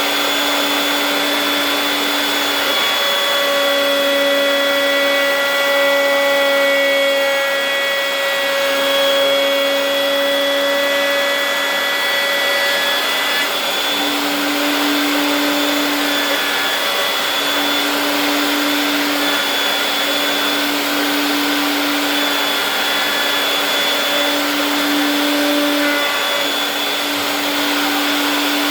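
Router table's high-speed router running with a steady high whine that dips slightly in pitch at times, as a workpiece is fed into the bit.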